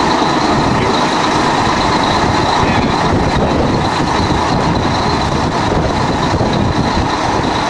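Fire engine's diesel engine running steadily close by, a loud, even drone with a faint high whine over it.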